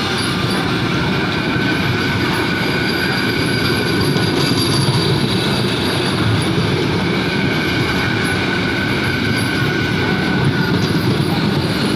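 Vande Bharat Express train running steadily on the rails: a continuous rumble with a steady high-pitched whine over it.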